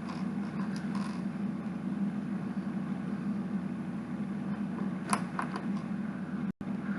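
Steady low hum in the room, with a few light clicks of plastic Lego pieces being handled about five seconds in. The sound cuts out briefly near the end.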